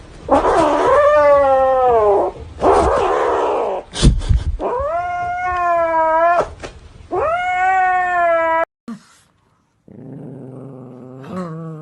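An angry pet's loud, drawn-out wailing cries, three in a row, each rising and then falling in pitch, with a hissing noise after the first. A lower, quieter drawn-out cry follows near the end.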